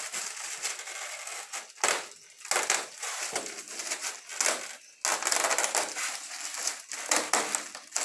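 Plastic wrap on a new washing machine's packaging crinkling and rustling on and off as it is pulled and torn away by hand.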